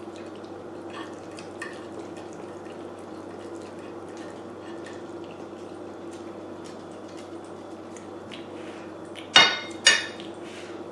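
Close-miked wet chewing and small mouth clicks from someone eating creamy pasta over a steady low hum. Near the end come two loud, sharp clinks of cutlery against the plate, about half a second apart.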